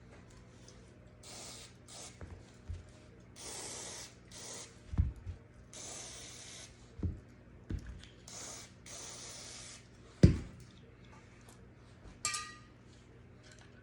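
Several short hissing bursts from an aerosol spray can, as when spraying cleaner onto a pistol's parts. Between them come a few dull knocks, the loudest about ten seconds in, and near the end a short metallic clink.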